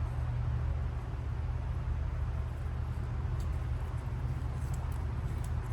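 A steady low hum, with a few faint light clicks about three and a half seconds in and again near the end from handling the plastic VW ignition coil connector and its wire terminals.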